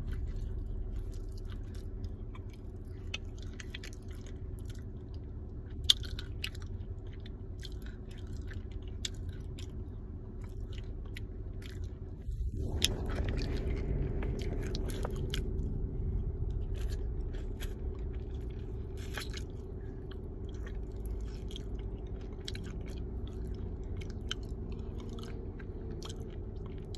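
Chewing of a smoked baked-clay ball: irregular crisp crunches, with one sharper crack about six seconds in, over a steady low hum.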